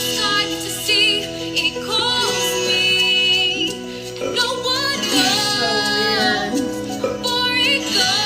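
Female voice singing a melody over instrumental backing, with long held notes that waver in pitch.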